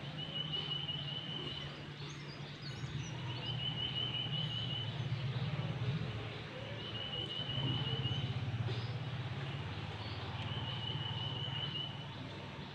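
A bird's rapid trilled call, about a second long, repeated every two to three seconds over a steady low hum.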